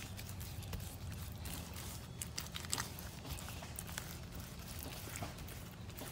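Wet Ultracal 30 gypsum plaster being worked by hand for a mold's beauty coat: irregular soft taps, dabs and short scrapes, over a steady low hum.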